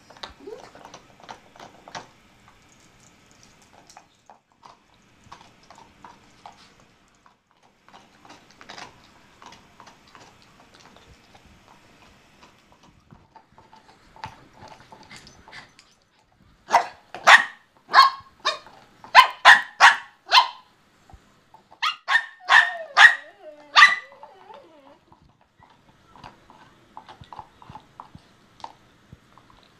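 A dog barking in two quick volleys about halfway through, eight or so sharp barks and then about five more, the second volley trailing off in a falling whine. Before and after, faint scratching and clicking of paws on a cloth recliner.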